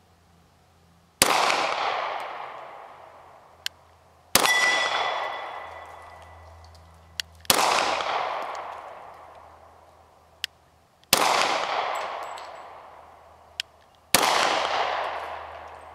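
A Springfield XD-40 .40 S&W pistol fired five times, a shot about every three seconds, each report echoing away across the range. After the second shot a steel target rings briefly.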